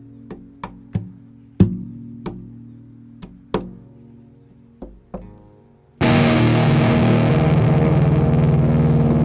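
Music: sparse plucked guitar notes ring over a held low drone. About six seconds in, a loud distorted buzzing wall of sound cuts in abruptly and holds steady.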